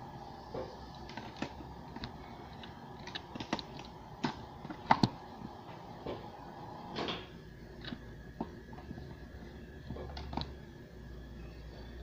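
Scattered light clicks and knocks, the sharpest about five seconds in, from a phone camera on its ring light stand being handled and adjusted.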